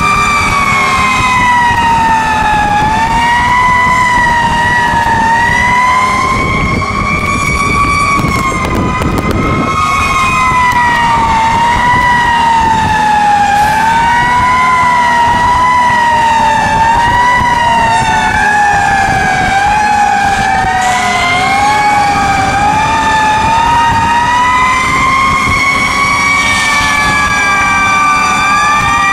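Several fire engine sirens wailing at once, their tones sliding up and down and crossing each other; one holds a steady high pitch at the start and climbs back to it near the end. A truck engine rumbles underneath, briefly louder about seven to ten seconds in.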